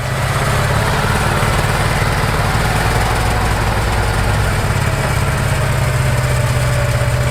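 A vehicle engine running steadily with a deep, even drone.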